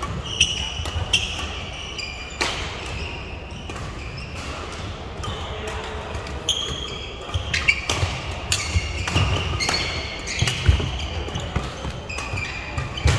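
Badminton doubles rally: sharp racket hits on the shuttlecock at irregular intervals, with short high-pitched shoe squeaks on the court floor between them.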